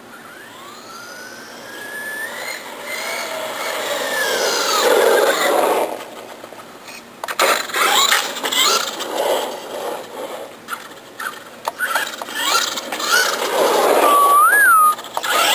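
Rustler VXL RC truck's brushless electric motor whining on a LiPo battery, its pitch rising and falling with the throttle. First comes one long run that swells and fades about six seconds in, then a string of shorter throttle bursts, loudest near the end.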